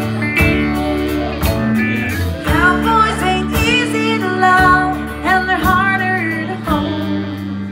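Live country band playing a mid-tempo song: acoustic and electric guitars, electric bass and drums. A melodic lead line rides over the band from a few seconds in.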